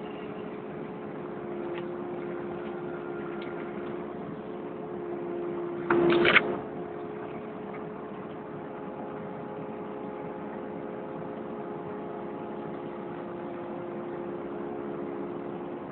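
Kubota KX080 excavator's diesel engine and hydraulics running steadily, heard up close from a phone mounted on the machine, with a hum of several held tones. About six seconds in there is a brief, loud burst of noise lasting about half a second.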